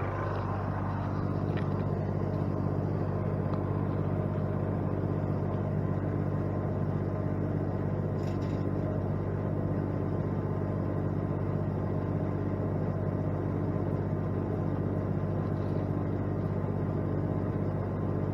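Tractor engine and wood chipper running steadily with an even low hum and no change in speed.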